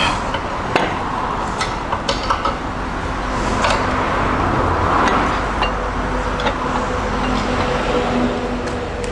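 Scattered light metallic clinks and taps as the camshaft timing gear and its bolts are handled on a bare Hyundai D6CB engine, over a steady background hum.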